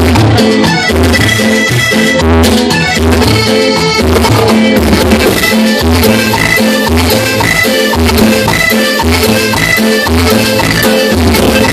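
Live cumbia band playing with a steady beat, led by a button accordion over congas and a regular bass line.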